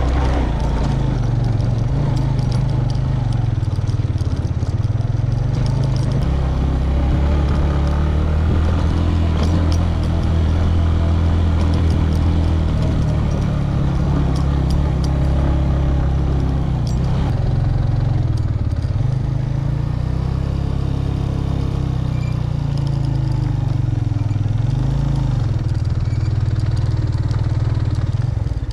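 Motorcycle engine running steadily while riding along a rough gravel and dirt track, its pitch rising and falling a little with the throttle in the second half.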